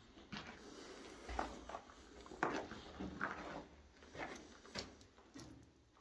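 Footsteps on a cellar floor strewn with brick rubble and grit, short irregular scuffs and crunches about two a second, with the strongest step about two and a half seconds in.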